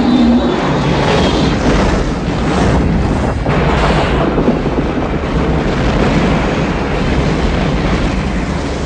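Film sound effects of a meteor strike blasting a city: a loud, continuous roar of explosion with deep rumble.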